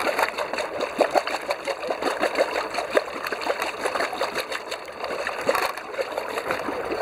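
Inboard engine's wet exhaust discharging cooling water at the yacht's hull side: irregular splashing and gurgling of water spurting into the sea, a sign the engine's raw-water cooling is circulating.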